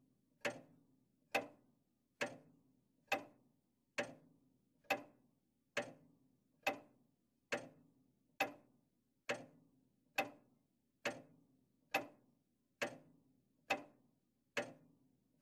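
Grandfather clock ticking slowly and evenly, just over one tick a second, each tick a sharp click with a short ringing tail.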